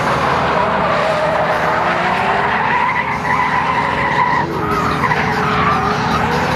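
Toyota Chaser drift car with a 1JZ-GTE turbocharged straight-six engine running hard while sliding sideways, its rear tyres skidding and squealing on asphalt.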